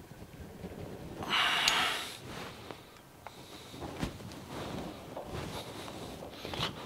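Small clicks and knocks from a chuck key bumping in a jaw of a four-jaw lathe chuck, then the chuck turned by hand while the work is trued to centre. About a second in, a one-second rush of noise is the loudest sound.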